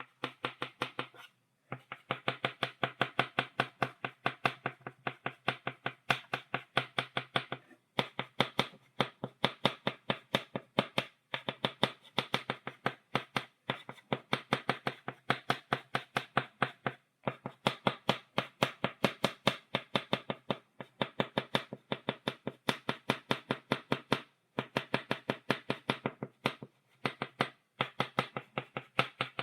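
Chalk tapping on a blackboard, dotting: rapid sharp taps, several a second, in long runs broken now and then by short pauses.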